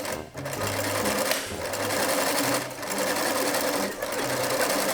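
Old SINGER sewing machine running as it stitches fabric, its speed uneven, with brief dips in sound every second or so as the foot pedal is pressed and eased.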